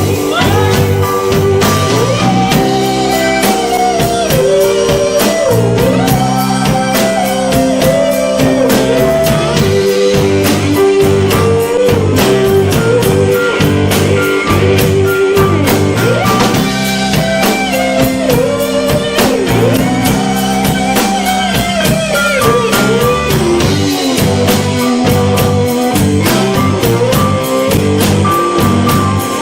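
Blues-rock band playing live: electric guitar, bass and drums with a steady beat, and a melodic lead line that bends and slides in pitch.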